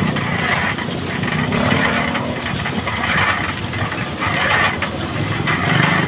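Portable drum concrete mixer running steadily, its engine hum growing stronger about five seconds in.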